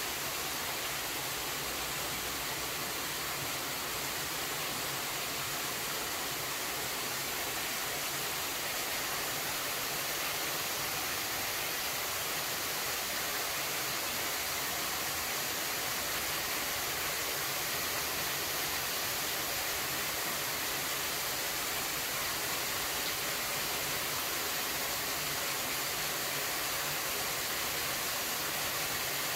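Steady, even hiss, strongest in the high range, with no distinct events.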